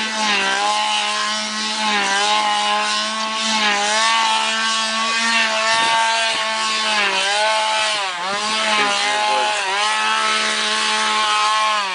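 Two-stroke chainsaws revving hard and held at high speed, their pitch dipping and climbing again every couple of seconds. They cut off suddenly near the end.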